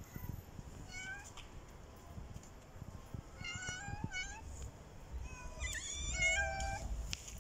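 Stray cat meowing repeatedly, asking for food: a short meow, then a pair of meows, then a louder run of meows near the end.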